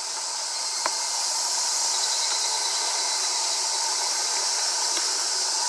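Steady, high-pitched chorus of insects, with one short click about a second in.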